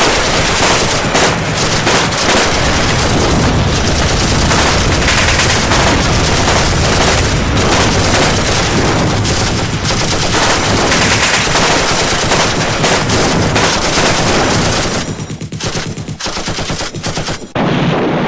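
Loud, sustained rapid automatic gunfire, many shots overlapping into dense volleys. It thins out about fifteen seconds in, then one more loud burst comes near the end.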